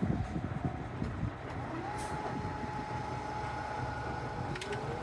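A passing vehicle's steady rumble with a held whine, and a second tone rising in pitch near the end.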